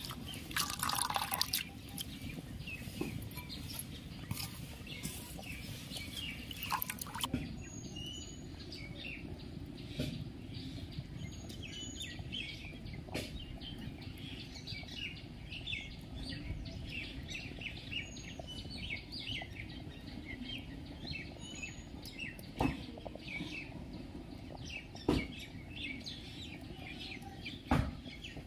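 Water splashing in a steel bowl as hands wash mustard flowers, for about the first seven seconds. After that, birds chirp in the background, with a few sharp knocks.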